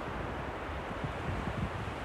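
Ocean surf breaking and washing on the shore as a steady rushing noise, with wind buffeting the microphone in irregular low gusts.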